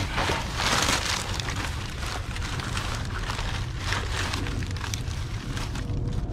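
Plastic trash bags rustling and crinkling as gloved hands pull them out and handle them, coming in repeated swells over a steady low rumble.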